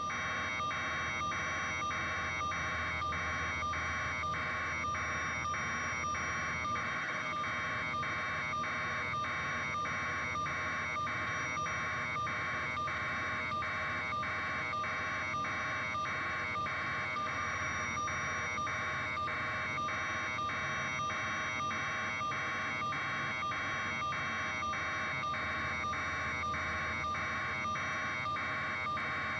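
Electronic alarm sounding in rapid, even pulses, about two a second.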